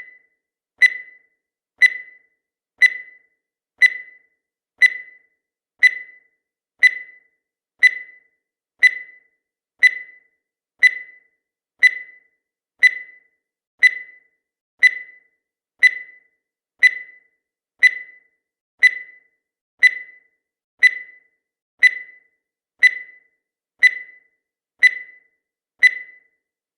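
Countdown timer sound effect: a short, high-pitched electronic tick once every second, evenly spaced, each one dying away quickly.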